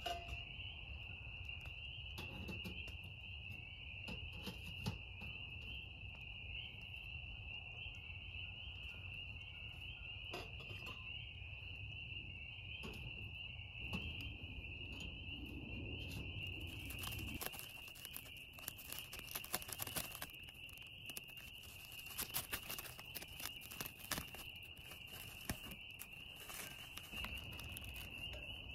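A steady high insect trill through the night woods, with scattered raindrops tapping on the plastic-wrap shelter. The taps come thicker and sharper in the second half, just as a low rumble underneath drops away.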